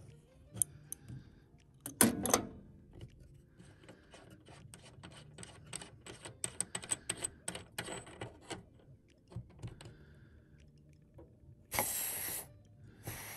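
Adjustable wrench knocking on the flare nut of an evaporator coil's piston orifice fitting. Then a run of quick clicks as the nut is spun off the threads. Near the end come two short hisses of leftover refrigerant pressure escaping as the nut comes loose.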